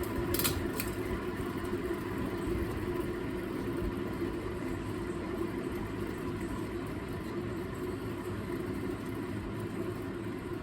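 CEC Georgian 303D ceiling fan running steadily, its motor giving a low hum and whir. Two short clicks in the first second.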